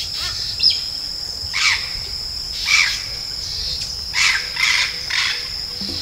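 Wild African grey parrot giving its flight call: a string of about six short, sharp calls roughly a second apart, over a steady high-pitched insect drone.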